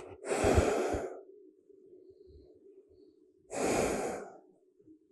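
A person breathing deeply and audibly close to the microphone while lying at rest between yoga poses: two long breaths, each about a second, some three seconds apart.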